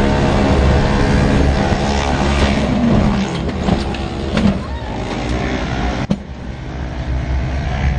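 Race UTV's engine running hard, heard from inside the cab, then the machine rolls over: about three seconds in the steady engine note breaks up amid a series of knocks, with a sharp crack about six seconds in.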